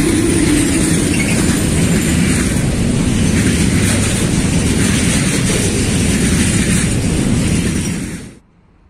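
Container freight train passing close by: a loud, steady rumble and rattle of wagon wheels on the rails. It cuts off suddenly about eight seconds in.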